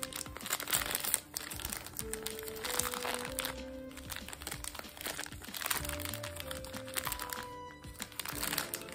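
Clear plastic wrapper crinkling and crackling in irregular bursts as it is pulled open around a tray of mochi, over background music with held notes.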